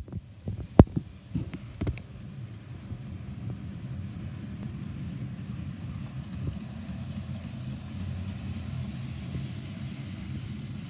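00 gauge model tank locomotive and its coaches running along the track, a steady low rumble of motor and wheels on rail. A few sharp knocks come in the first two seconds, the loudest about a second in.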